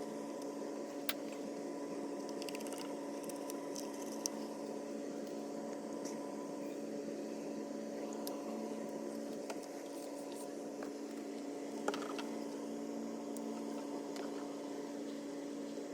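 Small electric water pump of a swamp cooler running with a steady hum. A few sharp clicks sound over it, about a second in, four seconds in and near twelve seconds.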